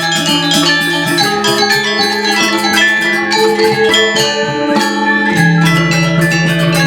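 Balinese gamelan playing: bronze metallophones struck in quick, busy patterns of many ringing notes over a held low note.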